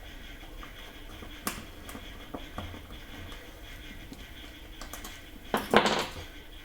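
Handling noises from small parts being worked on a bench: a few sharp clicks and taps, then a louder clattering scrape about half a second long near the end.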